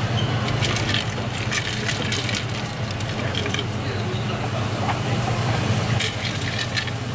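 Street ambience: a steady low hum with faint background voices and scattered light clicks and knocks.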